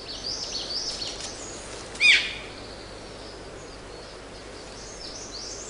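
Forest ambience of small birds chirping and twittering high-pitched over a steady background hiss, with one louder, sharply falling call about two seconds in.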